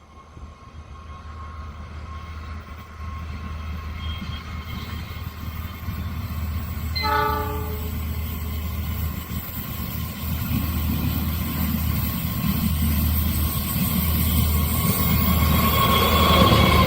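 Train approaching, its low rumble growing steadily louder, with one short horn blast about seven seconds in; hissing wheel and rail noise rises near the end as it draws close.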